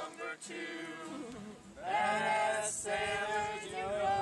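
A group of people singing together, with a short pause about a second and a half in, then coming back in on long held notes.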